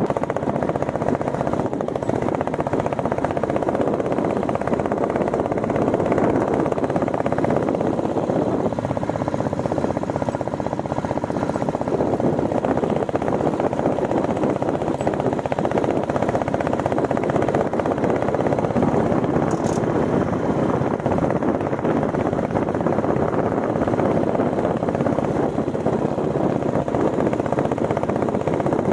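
Royal Enfield Bullet 350 single-cylinder motorcycle engine running steadily while riding, a rapid, even pulsing beat.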